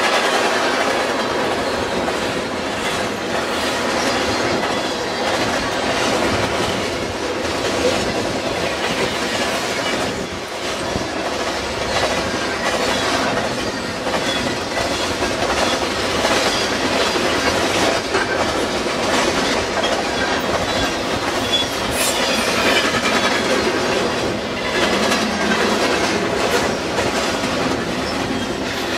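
Freight train cars, tank cars and then autoracks, rolling past, their steel wheels clattering over the rail joints in a steady, continuous run.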